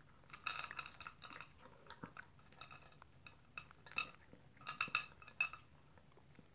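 Small poodle eating from its bowl: a run of faint, irregular clinks and small knocks as its food strikes the bowl, loudest in clusters about four and five seconds in.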